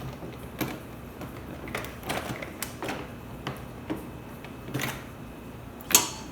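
A plastic ATV battery cover being worked loose and lifted out by hand, with scattered light clicks and knocks of plastic and loose screws, one sharper snap near the end.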